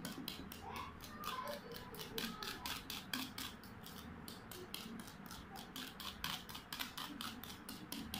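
Hand whisk beating egg yolks and whipped egg whites together in a steel bowl, a steady rhythm of quick scraping strokes at about five a second.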